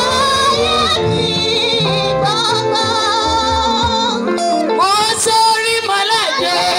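A woman singing a gospel song loudly through a microphone and PA, with vibrato on held notes, over live band backing.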